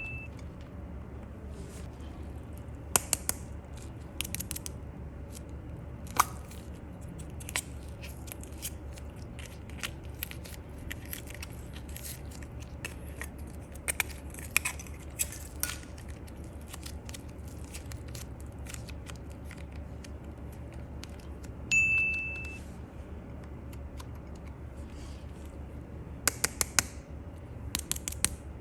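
Slime and small plastic pieces being handled: scattered clicks, taps and crackles over a steady low hum, with a single bright ding chime about three quarters of the way through.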